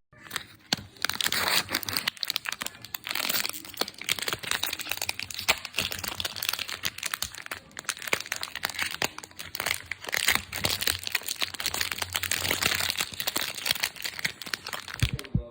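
Crumpling and crinkling: a dense, irregular run of sharp crackles that keeps going without a break.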